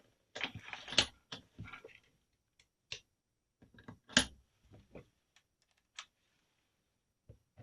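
Scattered small clicks and taps of a screwdriver and the rifle being handled while screws are taken out of the underside of the stock, with short quiet gaps between them.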